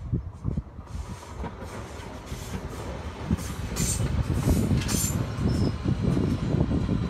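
DB class 440 (Alstom Coradia Continental) electric multiple unit approaching and passing close by, its wheels clattering irregularly over rail joints and points and growing louder as it nears, with a few sharp clicks from the wheels on the rails in the middle.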